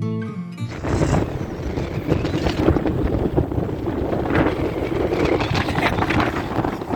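Acoustic guitar music cuts off under a second in, then strong gusting wind blasts across the microphone, a loud, uneven rush.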